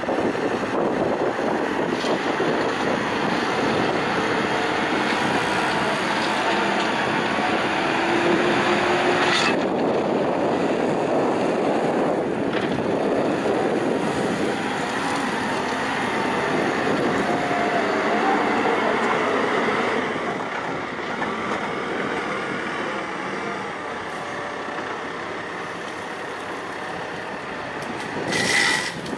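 Terex TLB890 backhoe loader's diesel engine working hard with its hydraulics, loading gravel, its pitch wavering as the machine works. It eases to a quieter run about twenty seconds in. Near the end there is a short, sharp hiss.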